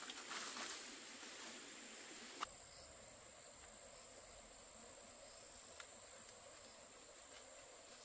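Faint outdoor ambience with a steady high-pitched insect drone. There is a soft rustle in the first second and a single sharp click about two and a half seconds in.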